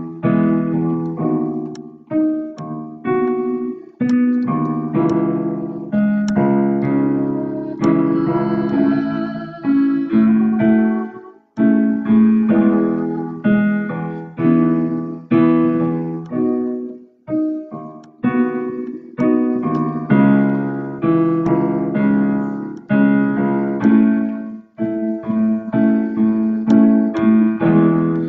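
Piano-voiced keyboard played alone, without singing: slow chords struck about once a second and left to ring.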